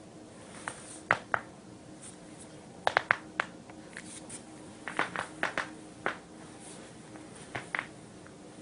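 A dozen or so sharp cracks and pops from spinal joints being cracked, some single and some in quick runs of two to four.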